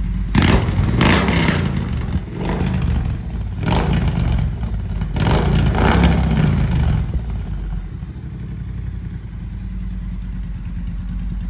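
Triumph Bonneville T120's 1200 cc parallel-twin engine revving through aftermarket 3.5-inch slip-on mufflers with their dB killer baffles removed. It gives a series of sharp throttle blips over the first seven seconds or so, then settles to a steady, deep idle.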